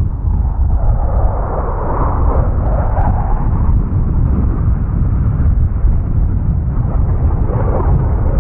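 RAF Eurofighter Typhoon's twin jet engines as it flies low: a loud, deep, steady jet roar that swells about a second in and again near the end.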